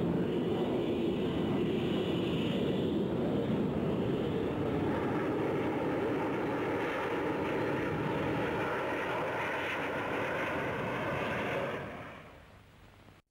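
Jet noise from a formation of Folland Gnat jets flying a display: a steady rushing roar that fades out about twelve seconds in and then cuts off abruptly.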